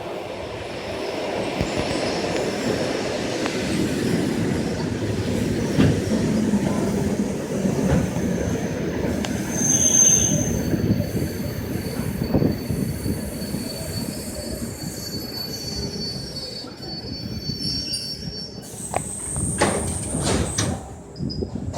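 ЭД4М electric multiple unit running past with a steady rolling rumble and wheel clicks. High-pitched wheel or brake squeals come in about ten seconds in, hold for several seconds, and rise higher near the end.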